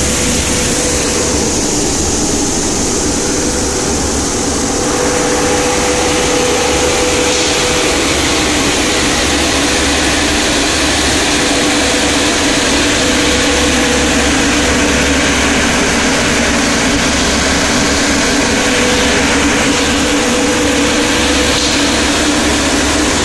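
5XZC-5DH black pepper cleaning machine running: a steady, loud rush of air from its centrifugal fan and cyclone, over a constant machine hum with a held note. The noise grows a little louder about five seconds in.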